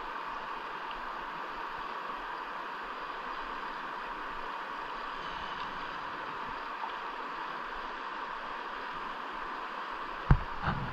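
Steady rushing noise of water, with a sharp knock near the end and a couple of smaller thumps right after it.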